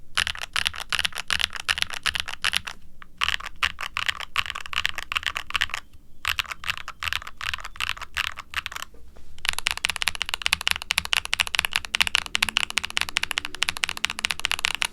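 Typing on a Novelkeys NK87 mechanical keyboard with Siliworks x HMX Nap linear switches on a carbon fiber plate, under double-shot ABS keycaps: a soft clack. Quick runs of keystrokes break off briefly three times, then a faster steady run takes up the last third.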